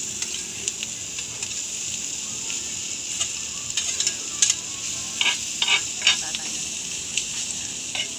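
Chopped pork sisig sizzling steadily on a hot metal sizzling plate, with metal scraping and clinking against the plate as the meat is pushed onto it; the clinks come thickest around five to six seconds in.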